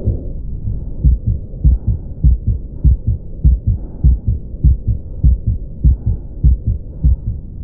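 Heart sounds with the continuous machinery-like murmur of a patent ductus arteriosus: about three beats every two seconds over a steady low rumble.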